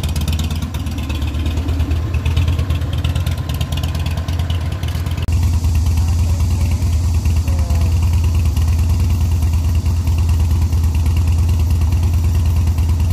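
Cruiser motorcycle engine running with a steady low throb. About five seconds in it cuts to another cruiser idling, slightly louder and steadier.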